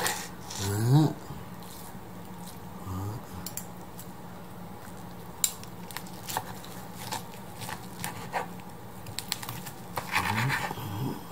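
Knife and fork carving a roast turkey breast on a wooden cutting board: scattered scrapes and light taps of the blade and fork on the board, with one sharper tap about halfway through.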